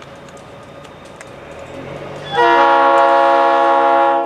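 Approaching diesel locomotive running, its engine note rising, then its air horn sounds one long blast about halfway in: a chord of several steady tones that cuts off near the end.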